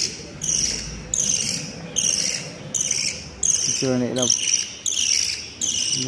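African lovebird chick making repeated high-pitched begging calls, about one and a half a second, each call falling in pitch. A brief low human voice sounds once about four seconds in.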